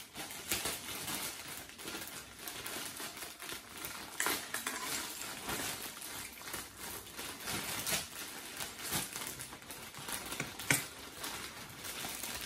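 Clear plastic bag crinkling and rustling in irregular crackles as hands open it and work a boxed pen set out of it, with one sharp tap near the end.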